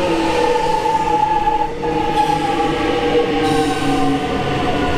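High Capacity Metro Train (HCMT) electric multiple unit rolling along a platform, its traction motors whining in several tones that slowly fall in pitch, over the rumble of wheels on rail.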